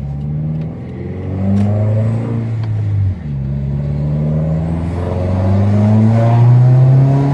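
2015 Subaru WRX's turbocharged 2.0-litre flat-four engine accelerating hard. The revs climb, drop suddenly at a gear change about three seconds in, then climb again through the next gear.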